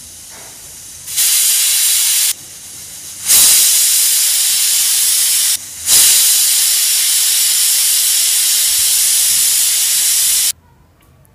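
Pressure cooker whistling: steam hisses out from under the weight on the lid vent in three loud blasts, with a softer hiss between them. The last blast runs about four and a half seconds and cuts off suddenly. Each whistle marks the cooker reaching full pressure, and the whistles are counted to time the cooking.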